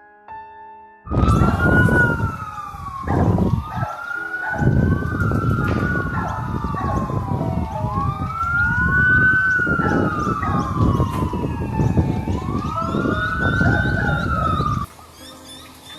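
Emergency vehicle sirens wailing, two or more rising and falling out of step with each other, over a heavy rumble. They start about a second in and cut off abruptly near the end.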